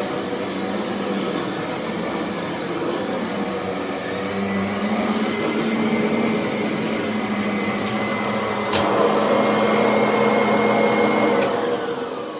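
Kirby Avalir upright vacuum with a 10-bladed metal fan running, its whine rising in pitch about 4 seconds in and getting louder after a click near 9 seconds. There are a few sharp clicks, which the owner puts down to something it sucked up. Near the end it is switched off and the motor whine falls away as it winds down.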